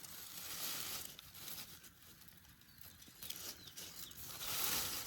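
Faint rustling and crackling of dry plant material, such as grass, twigs or an old nest, being moved, in two spells: one at the start and one from about three seconds in.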